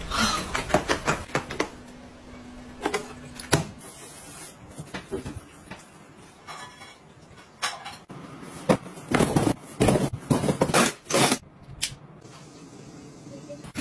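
A run of sharp clicks and knocks with rustling between them: household objects being handled and set up. A low steady hum runs for a couple of seconds near the start.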